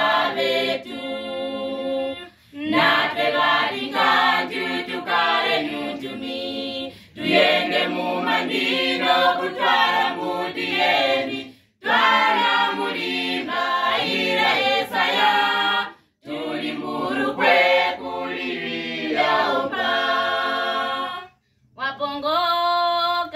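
Youth choir singing a cappella, in phrases of a few seconds broken by short pauses.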